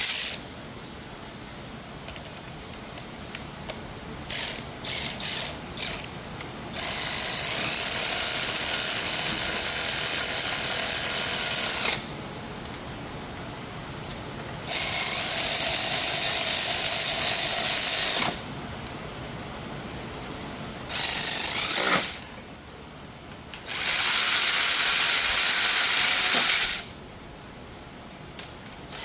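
Power ratchet running bolts in several long runs of about five seconds each, with a few short clicks before the first run, as the shifter is bolted to the transmission.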